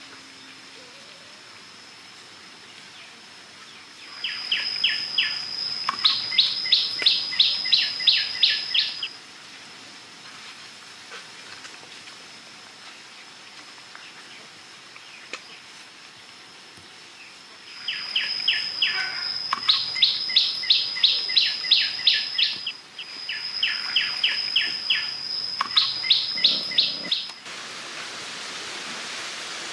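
A bird singing in three bouts, each a held high whistle followed by a quick run of about a dozen sharp notes, over a faint steady high-pitched tone.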